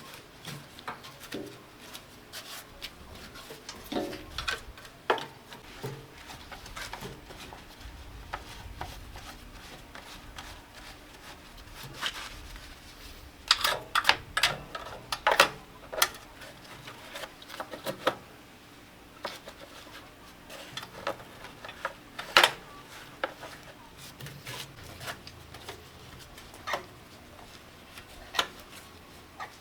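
Irregular clinks, taps and scrapes of metal parts and hand tools being handled during machinery repair work, with a cluster of louder knocks about halfway through and a single sharp knock about three quarters in.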